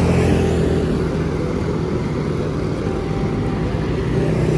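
A motor vehicle's engine running steadily close by in street traffic, a low, even hum.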